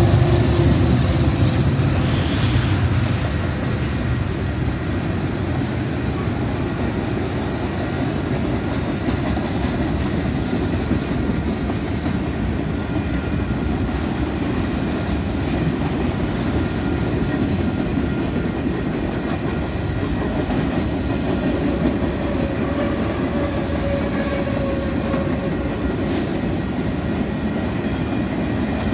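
Freight train passing close by: a diesel locomotive's engine fades away in the first few seconds, then the freight cars roll past with a steady clickety-clack of wheels on the rails.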